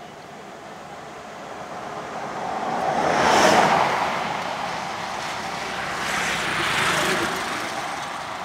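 Two road vehicles passing close by one after the other. The first swells to its loudest about three and a half seconds in and fades, and a second, quieter one passes near the end.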